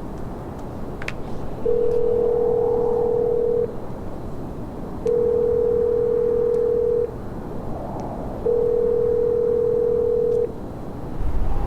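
Telephone ringback tone: three long steady beeps, each about two seconds, while an outgoing call rings and waits to be answered.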